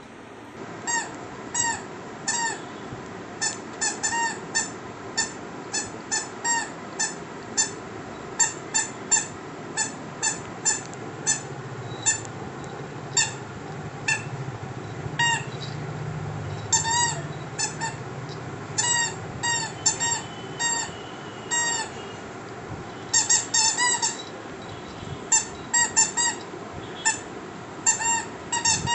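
Yellow rubber squeaky toy squeaking again and again as a puppy chews it: dozens of short squeaks in quick, irregular runs with brief pauses between.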